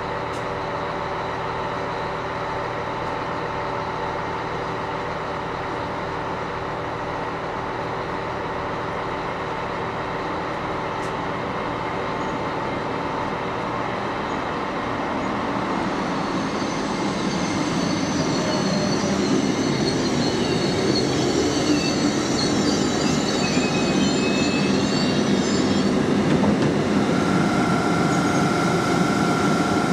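Train sounds at a railway station: a steady hum with a few held tones, then a train growing louder from about halfway. High-pitched metallic squealing wavers through the second half, and a steady whine comes in near the end.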